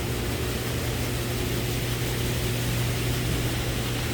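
Steady low engine drone of a rice combine harvester running, with an even hiss over it.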